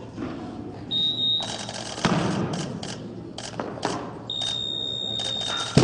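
High electronic beep of a weightlifting referee's 'down' signal, sounding briefly about a second in and again for about a second and a half near the end, over scattered knocks and claps.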